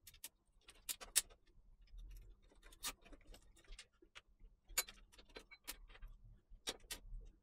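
Faint, irregular plastic clicks and ticks as bundled PC cables are handled and a cable tie is worked around them against a steel case panel, about ten separate clicks, with a couple of close pairs.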